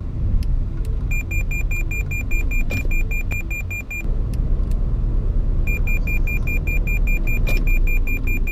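Toyota Yaris driving at speed, heard from inside the cabin as a steady low road and engine rumble. Two runs of rapid high beeping, about six beeps a second, start about a second in and again about halfway through: the car's forward collision warning as it closes on the target car ahead.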